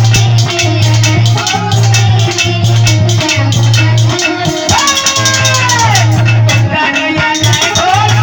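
Devotional kirtan music: fast, even percussion with rattles over a steady low drone, and a melody line that swoops down in pitch about five seconds in.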